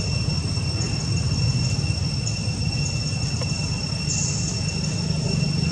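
Steady low rumble with a continuous thin, high-pitched whine above it, unchanging throughout.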